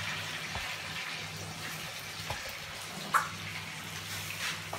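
Chicken and ground tomato sizzling in a frying pan, stirred with a wooden spatula that knocks and scrapes the pan a few times. A steady low hum runs underneath.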